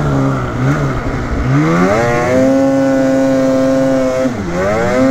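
Polaris Matryx Assault 146 snowmobile's 850 Patriot two-stroke engine revving hard under full throttle for a wheelie. The pitch climbs steeply about a second and a half in and holds high, then dips briefly near the end and climbs again.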